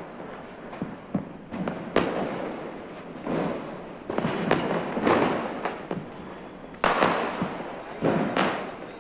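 Diwali firecrackers bursting, a string of sharp bangs at irregular intervals, each trailing off in echo, with the loudest bangs about two seconds in and near seven seconds.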